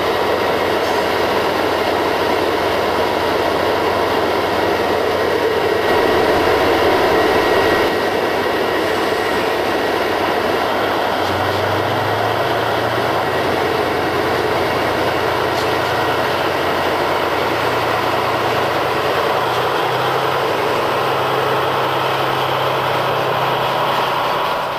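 Diesel freight locomotives running: a steady loud drone. About eleven seconds in, a low engine hum comes in and shifts up and down in pitch in steps as a freight train pulls away.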